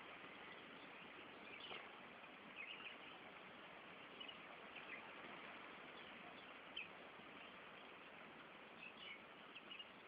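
Small birds chirping faintly, a dozen or so short high chirps scattered over a steady hiss, with a little cluster near the end.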